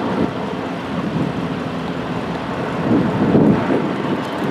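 Low rumble of wind and road traffic beside a multi-lane road, swelling about three seconds in.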